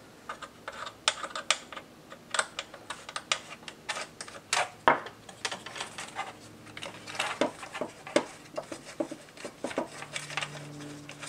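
Irregular clicks, taps and light rattles of a plastic motorcycle fender assembly and its license plate being handled on a wooden bench as the plate is taken off.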